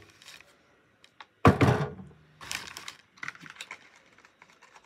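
Packaging and small items being handled as they are pulled out of a padded mailer. There is a thump with rustling about one and a half seconds in, a shorter rustle a second later, then a run of light clicks and taps.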